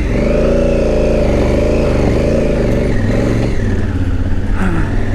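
Adventure motorcycle engine pulling hard up a steep, rocky trail climb, its pitch rising and falling again and again as the throttle is worked.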